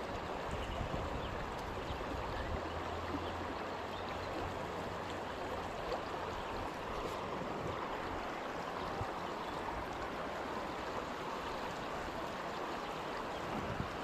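Shallow river current flowing steadily over a rocky bed, an even rippling wash of water.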